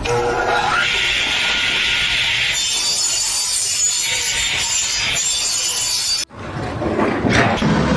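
Steady rasping, scraping noise, the kind made by sawing or rubbing, that cuts off abruptly about six seconds in, where a different noisy sound takes over.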